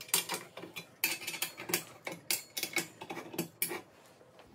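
Allen key working in the bolt heads of a metal rotisserie stand as the bolts are tightened: an irregular run of sharp metal clicks and clinks, several a second, dying away near the end.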